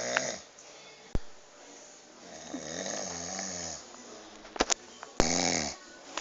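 Snoring: a long snore about two and a half seconds in and a shorter, louder one near the end, with a few sharp clicks between them.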